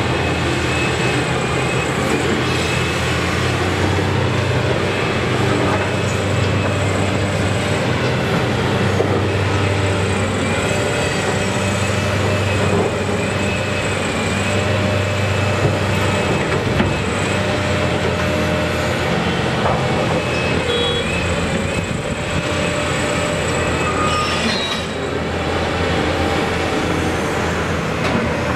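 Liebherr R976 crawler excavator's diesel engine running steadily under hydraulic load as it dumps a bucket of spoil into a dump truck and swings back, with a thin high hydraulic whine over the engine note. A few brief high squeaks come near the end.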